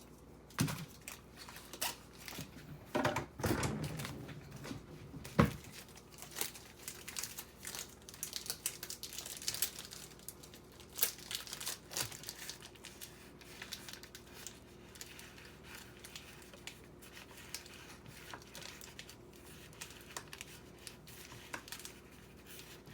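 Plastic wrapping crinkling as cheese is handled, with light taps and one sharp knock about five seconds in; the crinkling is busiest in the first half and thins out later.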